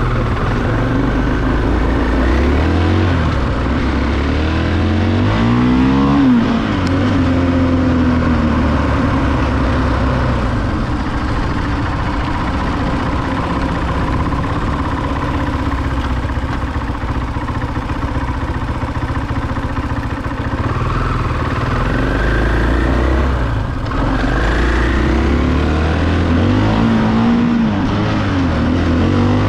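Motorcycle engine running while the bike is ridden. It revs up, climbing in pitch, about six seconds in, then runs fairly steady. Near the end there is a short drop in level, and the engine climbs in pitch again, over constant road and air noise.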